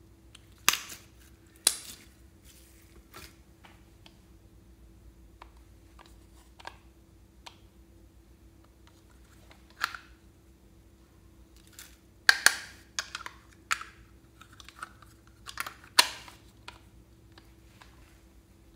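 Scattered sharp clicks and taps of hard plastic on glass: a small plastic container being handled, opened and tapped over a glass bowl as its contents are tipped in, with the busiest run of clicks about two-thirds of the way through.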